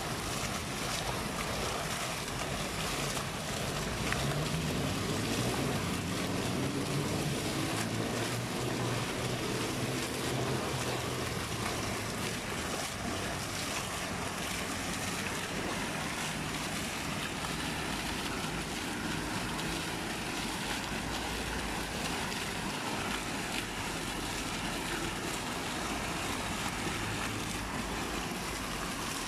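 Fountain water splashing: vertical jets falling back into the basin and streams pouring from spouts, a steady rushing splash.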